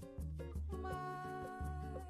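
Background music with a bass line on a steady beat; a held melody note comes in about a second in.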